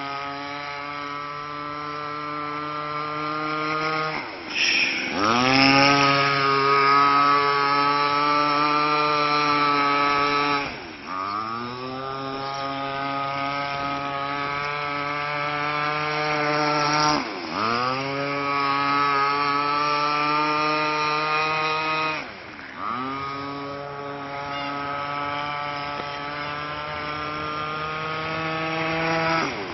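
26cc two-stroke petrol engine of a Wild Thing RC boat running at high revs. Its note drops sharply and climbs back up four times, about every six seconds.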